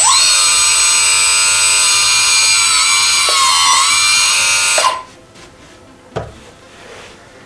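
Electric hydraulic pump motor of an RC4WD Bobcat R350 1:14 track loader running with a loud, steady high whine. Its pitch sags briefly under load, and it cuts off suddenly about five seconds in.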